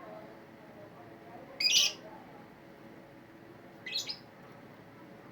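Caged lovebirds giving two short, shrill chirps, one about a second and a half in and a slightly shorter one about four seconds in.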